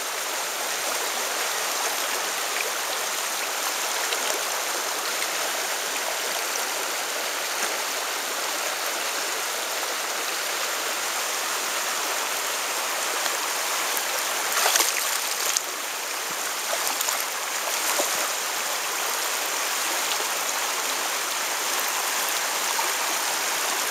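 Shallow stream flowing over stones: a steady rush of moving water, briefly louder twice a little past the middle.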